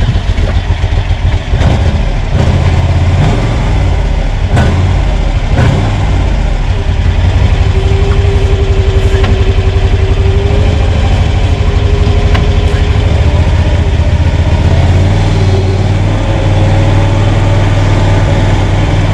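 Krosh all-terrain vehicle's Loncin 30 hp petrol engine running steadily and getting louder about two seconds in as the machine is tried out, with a few sharp knocks early and a steady whine coming in the middle. The engine has been stalling in cold weather, and here it keeps running.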